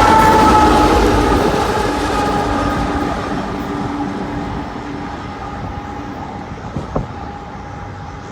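Loaded coal train rolling past on the rails, growing steadily fainter as it moves away, with a thin steady whine that fades along with it. One sharp click about seven seconds in.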